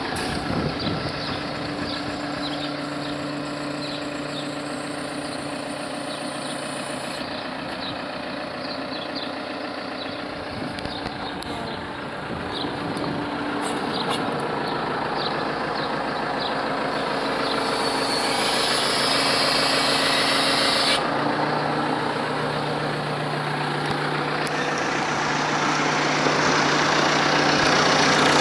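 Ahlmann AZ10 wheel loader's diesel engine idling steadily, growing louder toward the end.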